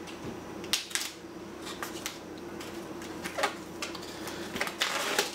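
Scissors cutting open a plastic food package: a few sharp snips and clicks, then a longer crinkling rustle of plastic near the end.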